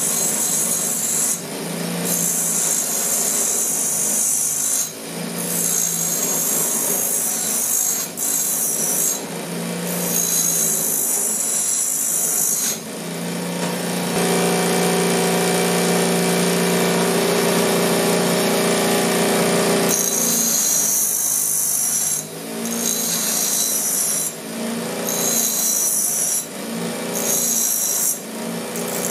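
A 6-inch Harbor Freight bench grinder with a freshly fitted wheel grinding steel in repeated passes. Each pass is a high, hissing rasp, broken by short pauses when the work is lifted. For about six seconds in the middle the wheel spins free with only the steady hum of the motor.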